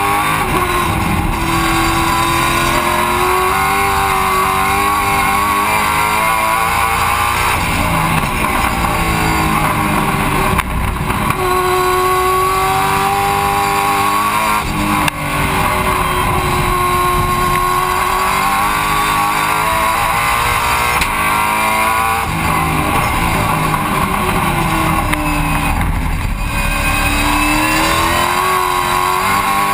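Holden Commodore V8 Supercar's 5.0-litre V8 at racing speed, heard from inside the stripped cockpit: the engine note climbs and falls again and again through gear changes and corners, with brief dips in revs on the overrun.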